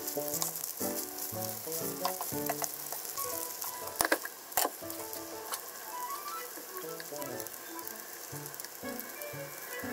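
Yakisoba noodles sizzling in oil in a frying pan as they are pressed flat to fry into a crisp cake. About four seconds in, a ceramic plate is set down on the counter with two sharp clacks about half a second apart.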